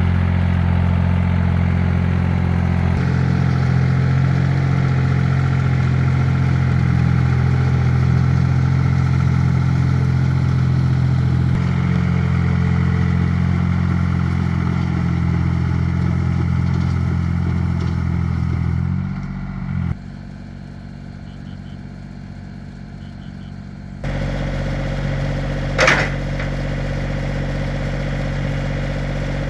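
Tractor engine running steadily. About two-thirds through, its revs drop and it goes quieter; then it changes abruptly to a steady engine again, with one brief sharp sound a couple of seconds later.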